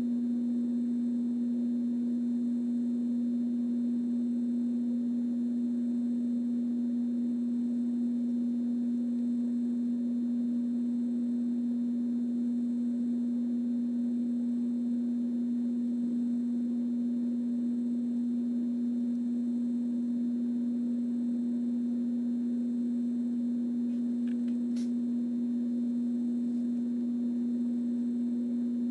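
A steady electrical hum: one low, unchanging tone with faint hiss, with a single faint tick about 25 seconds in.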